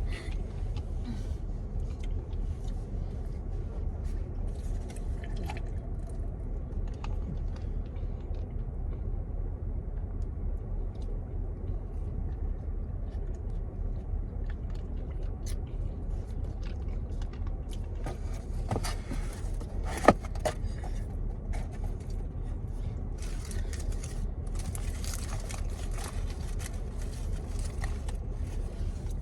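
Eating noises inside a car: rustling and scraping of takeout food packaging, chewing, and scattered small clicks over a steady low cabin rumble. Bursts of rustling come in two spells in the second half, with one sharp knock, the loudest sound, about two-thirds of the way through.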